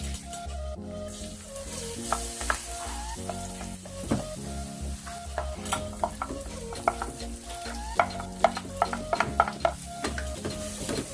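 Shrimp stir-frying in a pan, sizzling as it is stirred, with the utensil clicking and scraping against the pan over and over from about two seconds in.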